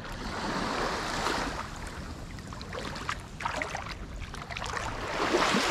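Small waves washing onto a sandy shoreline, swelling about a second in and again near the end.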